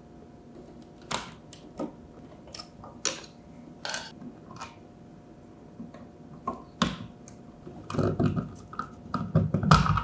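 Light clicks and taps of hands handling a wall outlet and multimeter probes, then a longer spell of scraping and rustling near the end as the receptacle is pulled out of its electrical box.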